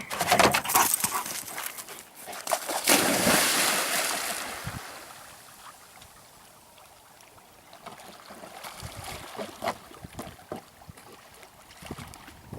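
Water splashing as a chocolate Labrador retriever goes through the water, with the loudest splash about three seconds in and softer splashing and sloshing later on.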